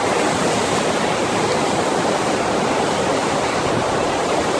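Steady rushing of the FlowRider's pumped sheet wave: a thin, fast sheet of water flowing over the ride surface at a constant, loud level.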